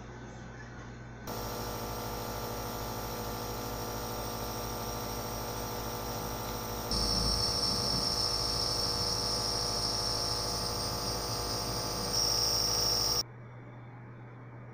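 Sesemed mini compressor nebulizer running: its small electric compressor gives a steady buzzing hum. About halfway through, a high hiss of air joins and the sound gets louder. It stops abruptly near the end.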